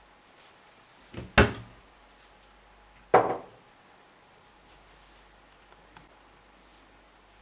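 Two sharp knocks about two seconds apart as a ceramic mug is handled and a kitchen wall cupboard door is shut, each with a short ring.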